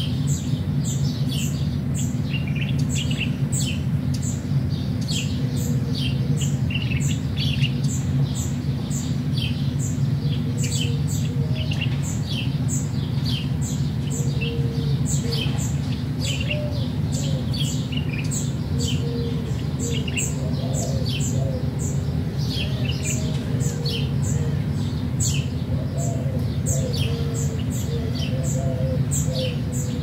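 Small birds chirping, many short high calls in quick succession, over a steady low rumble. A lower, wavering bird call joins in during the second half.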